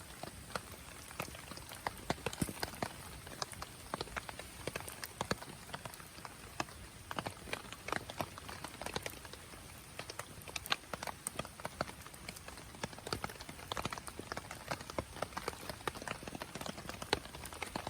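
Campfire crackling: irregular sharp pops and snaps over a steady low hiss.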